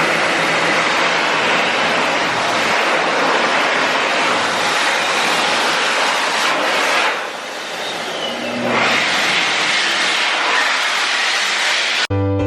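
Loud rushing wind and vehicle noise from travel in a moving vehicle, with wind buffeting the microphone. It eases for a couple of seconds about seven seconds in, then comes back.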